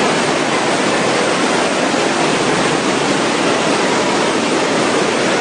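Fast-flowing floodwater rushing: a steady, loud, unbroken wash of water noise.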